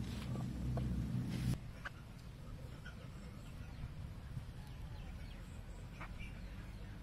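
A few faint, short bird calls over quiet outdoor background noise, after a low rumble that cuts off suddenly about a second and a half in.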